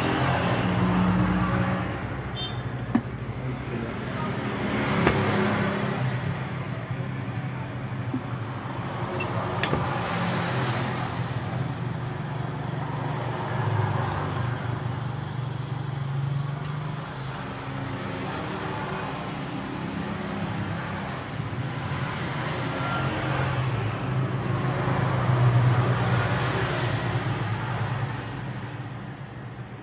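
Motor-vehicle traffic going past, engines swelling and fading every few seconds over a steady low engine hum.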